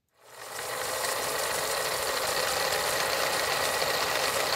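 Old film projector sound effect: a steady mechanical rattle with hiss, fading in over the first second.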